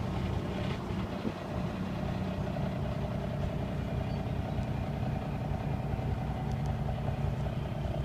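Cummins N14 diesel engine of a 1998 Kenworth T800 dump truck idling steadily.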